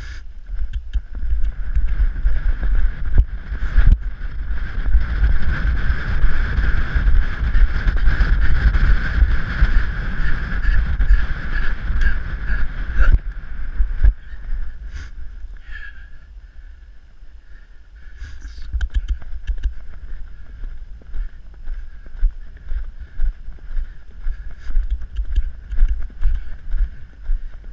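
A horse's hooves striking sandy dirt under a ridden horse, with wind rushing over the microphone. The rumble and rush are heaviest for the first dozen seconds, then ease, and separate hoofbeats stand out in the second half.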